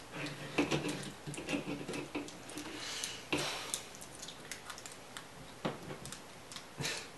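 Plastic clicks and snaps of a Transformers figure's joints and parts being twisted and folded by hand: a string of irregular small clicks, with louder snaps about three seconds in, near six seconds and near the end.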